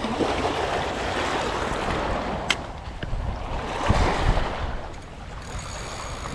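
Small waves washing on a stony shore, with wind buffeting the microphone in low rumbles around four seconds in. A single sharp click comes about two and a half seconds in.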